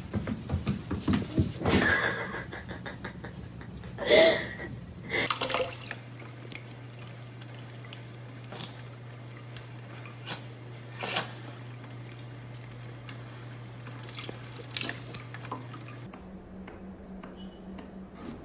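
Kitchen faucet running a thin stream into a stainless steel sink: a steady splashing hiss with scattered drips and clicks that stops abruptly about sixteen seconds in. Before it come a few seconds of louder, irregular knocks.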